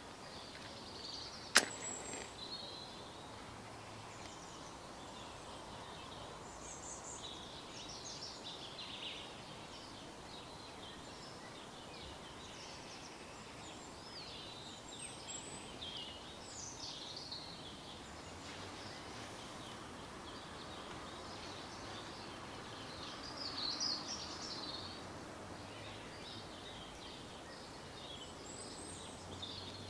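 Small wild birds chirping and trilling on and off throughout, over a faint steady background. A single sharp click comes about a second and a half in and is the loudest sound.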